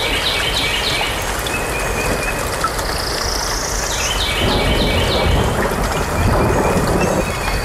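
A bird chirping in quick runs of short, falling notes, once at the start and again about four and a half seconds in, with a thin rising whistle in between, over a steady low rumble.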